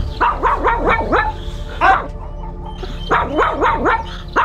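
Small Maltese bichon barking aggressively in quick high-pitched volleys: about five sharp barks in the first second, a lone bark near two seconds, then another rapid run of about five. It is reactive barking at a larger dog.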